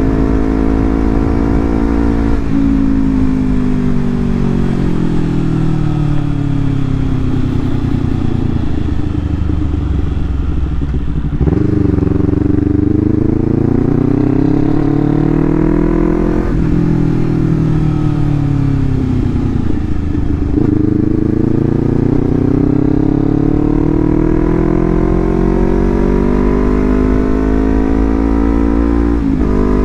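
Honda CBR250RR engine through a Leovince GP Corsa full-system exhaust, revved at a quarter to half throttle. The exhaust note swings slowly up and down in pitch several times, with a sudden jump upward about eleven seconds in and another a few seconds later.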